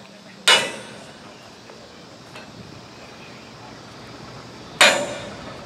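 Hammer striking steel on a coal hopper car's coupler gear during a knuckle repair: two sharp metallic clangs about four seconds apart, each ringing briefly.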